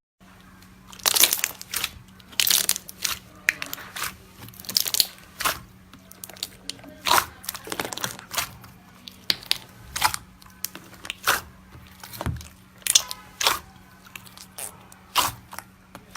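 Slime worked by hand, giving irregular crunchy crackles and pops about one or two a second, over a faint steady hum.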